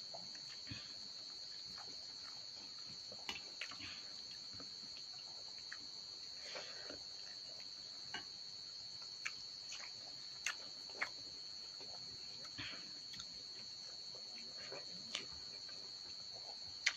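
Crickets chirring steadily in the background, with scattered small clicks and taps as fingers scoop dal and curry from steel dishes and mix them into rice in a steel bowl.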